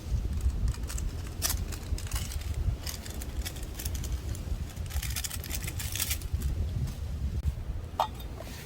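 Wind buffeting the microphone as a steady low rumble, with scattered light clicks and rustles of handling.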